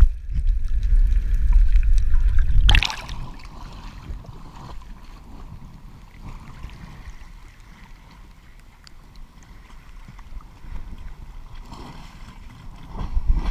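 Action camera underwater: a loud muffled low rumble of water against the housing, then about three seconds in a brief splashy rush as it breaks the surface. After that, gentle water lapping and sloshing against the camera at the waterline, growing louder near the end.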